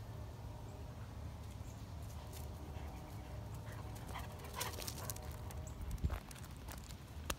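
Doberman pinscher whimpering faintly, with a brief thump about six seconds in.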